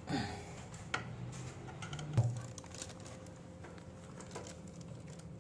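Scattered light clicks and knocks of wires and small parts being handled while a consumer unit is wired, the sharpest about two seconds in, over a low steady hum.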